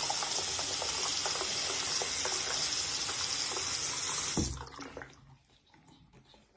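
Water running steadily from a tap, with a few faint ticks. It cuts off abruptly about four and a half seconds in.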